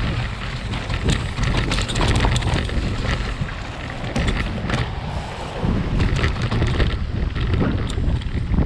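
Mountain bike descending a rough, rocky trail: tyres, chain and frame rattling and knocking over stones in quick irregular clicks, under a steady rumble of wind on the microphone.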